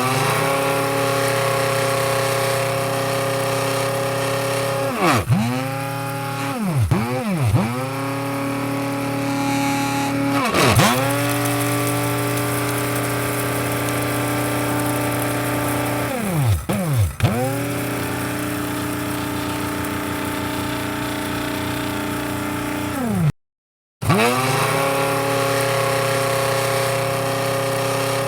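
Electric coffee grinder motor running with a steady whine. Its pitch dips sharply and swings back up several times, around five to eight seconds in, again near eleven seconds, and twice near seventeen seconds. The sound cuts out completely for about half a second near the end, then resumes.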